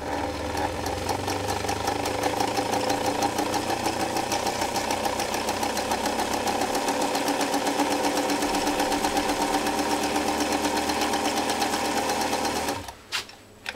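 Swiss Elna Supermatic sewing machine running at a steady speed, straight-stitching through vegetable-tan leather with a fast, even rhythm of needle strokes. It stops near the end, followed by a couple of clicks. In the owner's view its belt drive makes it sound a little clunky and less smooth than other machines once it is in its rhythm.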